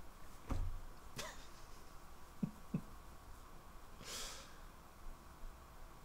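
Quiet room with a few soft knocks and clicks from a cat being stroked on a desk, and a short breathy exhale about four seconds in.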